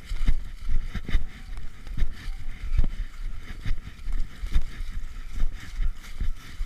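Footsteps of a person walking at a steady pace, about two a second, thudding through a body-worn GoPro action camera, with wind and rubbing noise on its microphone.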